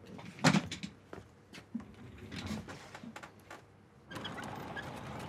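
A sudden loud knock about half a second in, then a scattering of light clicks and knocks; about four seconds in, a steady even noise takes over.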